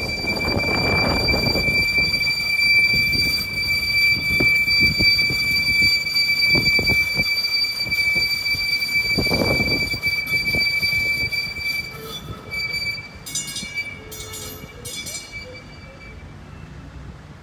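Steel wheels of a battery-electric tram squealing on a curve in the track: one steady high-pitched squeal that stops about two-thirds of the way through.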